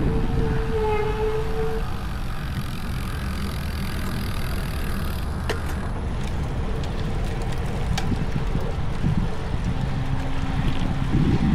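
Wind rushing over the microphone of a moving bicycle, with motor traffic going by.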